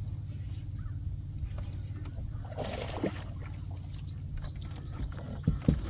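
A largemouth bass hits a buzzbait with a splash about two and a half seconds in, over a steady low hum, followed by a couple of sharp knocks near the end.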